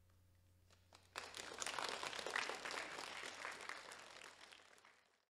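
Audience applauding, breaking out about a second in and dying away until it cuts off just before the end.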